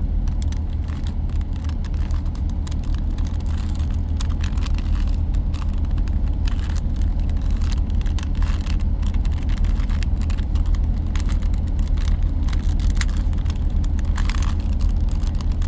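Rubik's Cube being turned by hand, its plastic layers giving many quick, irregular clicks, over a loud steady low hum.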